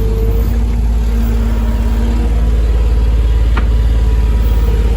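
New Holland skid steer's diesel engine running loud and steady on fuel that is gelling in the cold, with a faint whine during the first two seconds as the boom is raised. A sharp click comes about three and a half seconds in.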